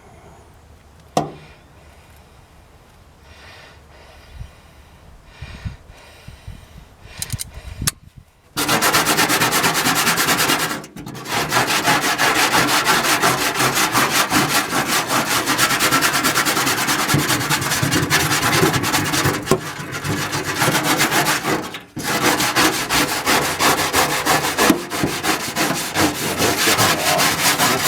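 Steel wire brush wheel, clamped in vice grips and worked by hand, scrubbing heavy caked-on grime off an aluminum pan. After a few seconds of light handling clicks, a loud rapid rasping scrub starts about a third of the way in and keeps going, with two short breaks.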